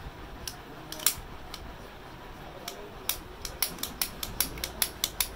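Hero HF Dawn magneto flywheel rotor turned by hand, giving sharp metallic clicks: a few at first, then a quick run of them from about three seconds in. The clicks come from an iron leaf inside the flywheel that lacks its plastic guide and moves up and down as the rotor turns. This is the source of the bike's knocking noise, with a new timing chain set already ruled out.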